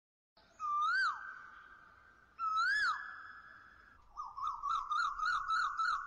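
Whistled bird calls: two rising-then-falling whistles about two seconds apart, then a quick run of repeated warbling notes, three or four a second.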